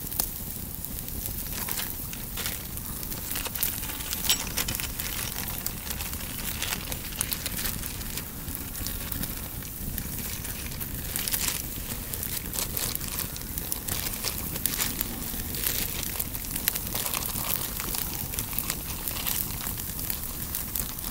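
Wood fire crackling with many irregular small pops under a grill grate where a steak is cooking.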